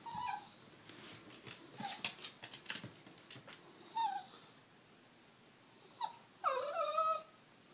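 Shiba Inu whining with a chew stick in its mouth, fretting over where to hide the treat: short high whimpers that drop in pitch, then a longer wavering whine near the end. Around the middle there is a run of sharp clicks and scuffles.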